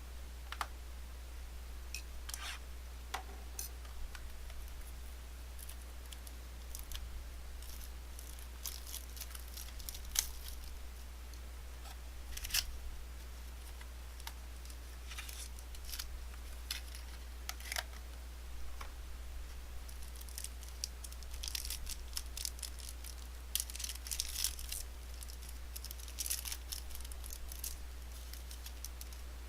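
Trading cards and their packaging being handled: scattered small clicks and brief scratchy rustles, busier in the last third, over a steady low hum.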